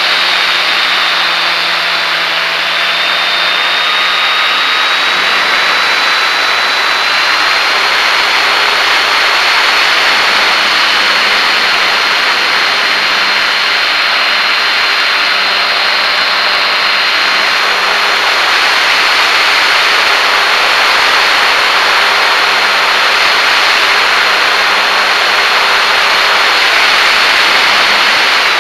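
Top RC GeeBee R3R model racer's motor and propeller in flight, heard from a camera on the airframe: a steady high whine over a broad rush of wind. The whine climbs slightly in pitch over the first several seconds and drops right at the end.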